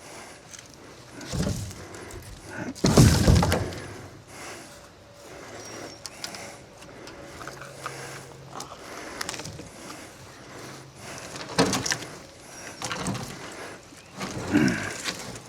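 Irregular knocks and thuds, the loudest about three seconds in, with quieter spells in between.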